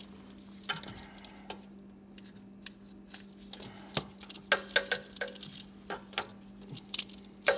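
Irregular metallic clicks and clinks of hand tools as locking pliers are set on a rubber fuel line to pinch it off, over a steady low hum.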